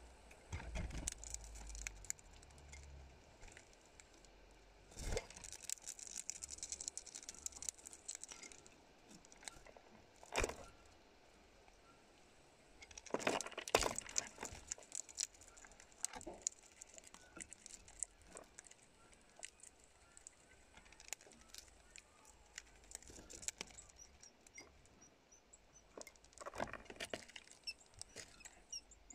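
Juvenile hawfinch working at a clear cup close to the microphone: scattered sharp clicks and taps of its bill and claws on the cup's rim, in a few louder clusters about 5, 10 and 13 seconds in.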